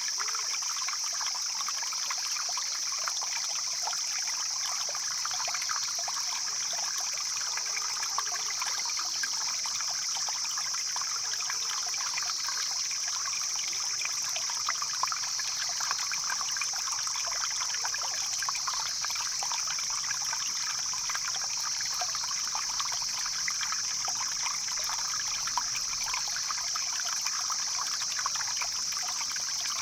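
Stream water flowing and trickling over stones, a steady, unbroken babble with small splashes throughout. A constant high-pitched hiss sits above it.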